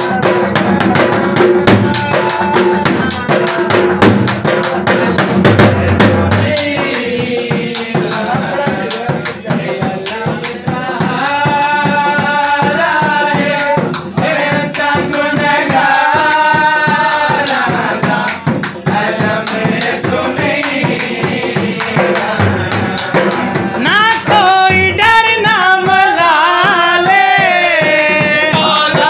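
A qaseeda sung to dhol drumming. Fast drum strokes carry the first few seconds on their own, then a voice comes in singing the devotional verse over the drum about seven seconds in.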